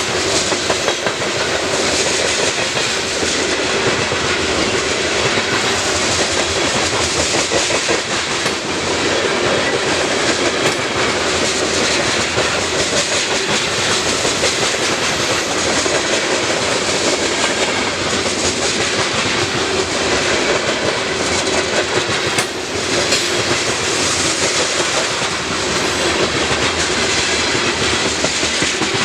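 Freight cars of a CN grain train rolling past close by, wheels clacking steadily over the rail joints.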